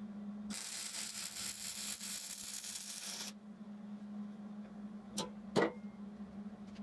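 MIG welder arc crackling for about three seconds as a tack weld is laid on steel tubing, then two sharp knocks about two seconds later, over a steady hum.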